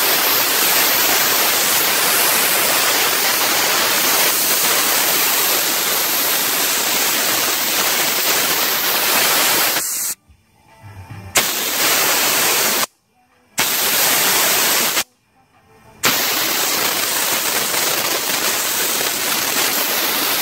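Compressed air blowing off through a hand-worked valve on a Davey SCBA breathing-air compressor's control panel: a loud hiss that cuts off sharply about halfway through, then is let out again in three more blasts, the last one the longest.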